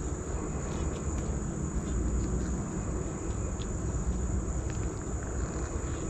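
Honey bees humming steadily on a frame lifted out of an open hive, under a continuous high-pitched trill of insects, with a few faint clicks from handling the frame.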